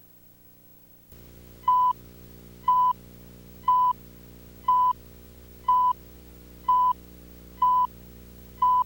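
Eight short electronic beeps of one steady pitch, about one a second, over a steady electrical hum that begins about a second in.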